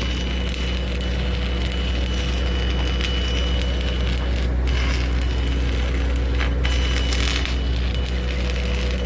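Simpson S433 diesel engine running steadily under load while it drives an arc welder, the crackle of the welding arc laid over the engine note. The crackle breaks off briefly a couple of times.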